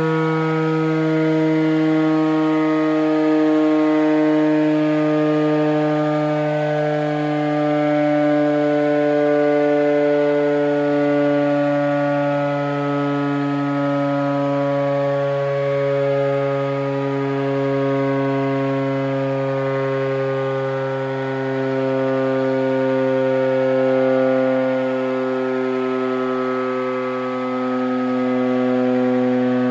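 Emergency alert alarm sounding as a loud, steady siren-like drone of several stacked tones, gliding slowly down in pitch.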